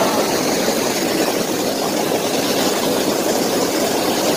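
Massage pool water jets churning the water in a steady, loud rush of bubbling.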